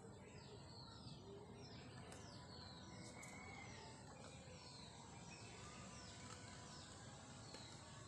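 Near silence with faint bird chirps: short falling calls, about one a second, over a low outdoor hiss.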